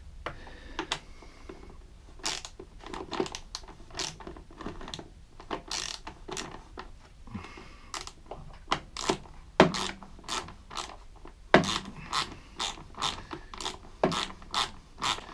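Hand ratchet clicking in short irregular runs as it works a small bolt loose from the generator's plastic housing.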